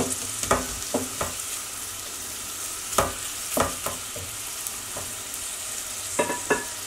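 Diced onions sizzling in oil in a stainless steel pot, stirred with a wooden spoon that knocks against the pot now and then. The onions are still pale, softening on their way to golden.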